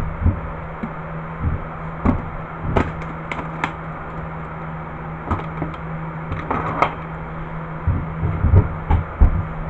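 Aluminium-framed tool case being handled and opened on a wooden table: a scattered series of knocks, thumps and clicks from the case and its metal hardware, over a steady low hum.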